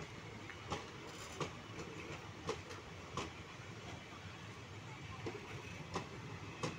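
Passenger train of ICF coaches rolling past: a steady low rumble of wheels on the rails, with sharp clacks at uneven intervals as the wheels pass over the track.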